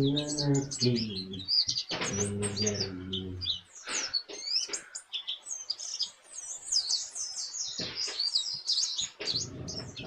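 A white-eye (pleci) chirping in quick, high, twittering bursts, thinning out past the middle and picking up again near the end. A low voice sounds underneath for the first three or so seconds.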